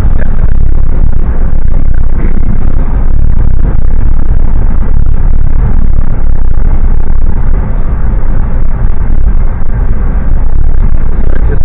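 Steady, loud rumble of a vehicle on the move, a noisy travel sound with no clear engine note. It dips slightly for a moment a little past the middle.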